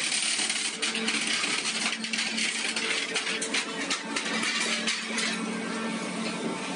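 Scrap metal clinking and rattling in a hydraulic scrap shear's feed box: a dense run of sharp metallic clinks, over a steady hum that comes and goes.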